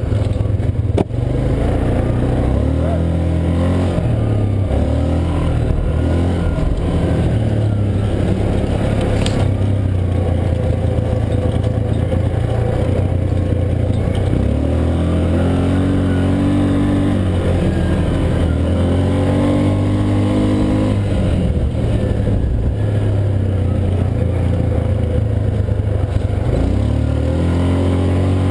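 Yamaha Rhino side-by-side's engine running while driving along a rough dirt trail, its pitch rising and falling as it speeds up and eases off, with a couple of sharp knocks from the ride.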